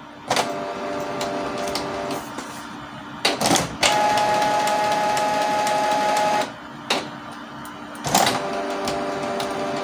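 Canon G1010 ink-tank printer running a deep cleaning cycle, the stronger form of head cleaning: its internal motors whine steadily in three stages, broken by sharp clicks, with the loudest stretch in the middle.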